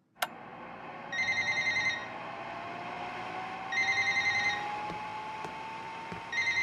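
A telephone ringing with a warbling electronic trill, three rings of about a second each, roughly two and a half seconds apart, over a steady hiss, after a click near the start.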